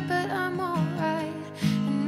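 Background music: a soft song with a woman singing over acoustic guitar.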